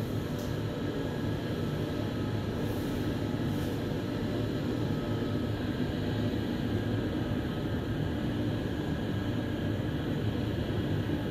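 Inside a Mitsubishi Nexiez-MR traction elevator car travelling upward at about 2.5 m/s: a steady low rumble and rush of air from the moving car.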